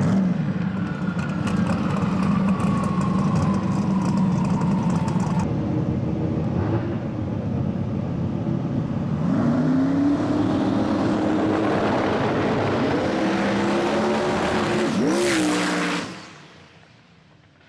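Twin-turbo V8 drag-racing Mustang engine running loud, first settling after the burnout, then climbing in pitch as the car launches down the strip. The sound drops away suddenly about a second and a half before the end.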